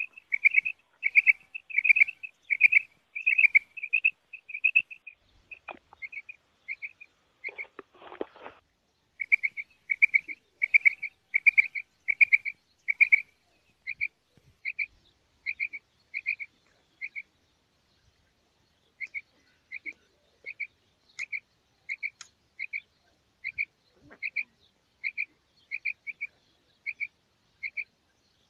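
Female rain quail calling: a long series of short, high chirping notes, about two a second, in bouts with short pauses, spacing out further toward the end. A brief scratchy rustle about eight seconds in.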